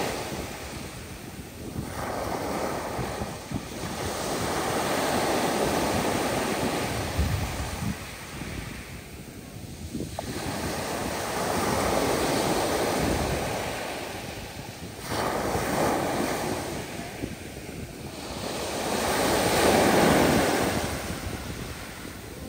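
Rough sea waves breaking and washing in, swelling and fading in surges every few seconds, the loudest near the end, with wind buffeting the microphone.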